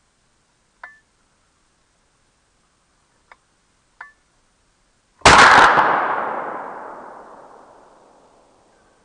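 A single rifle shot about five seconds in, sharp and loud, its report echoing through the woods and dying away over about three seconds.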